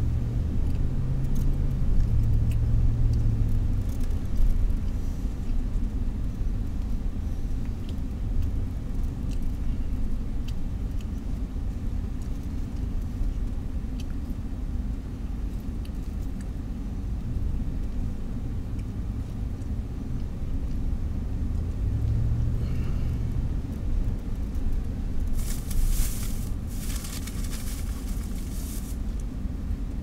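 Car engine and tyre noise heard from inside the cabin while driving: a steady low rumble, with the engine's hum rising briefly at the start and again about three-quarters of the way through. A burst of hiss comes near the end.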